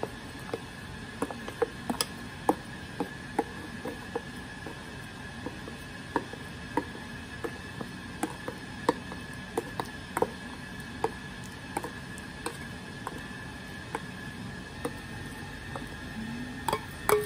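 Metal spoon clicking and scraping against a stainless-steel mesh sieve as castella batter is pressed through it: irregular light clicks, about one or two a second.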